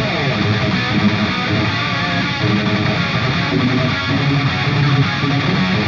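Intro music led by guitar, a steady rock track.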